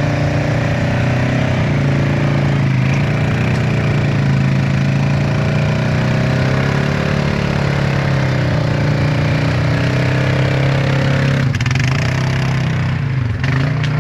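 Polaris RZR 900 side-by-side engine running at a fairly steady speed, its pitch wavering slightly as the throttle changes, with a brief shift in the note about eleven and a half seconds in.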